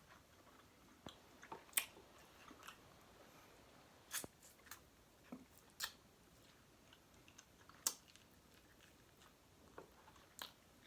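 A person chewing food with quiet, scattered mouth clicks and smacks, a few sharper ones spread through.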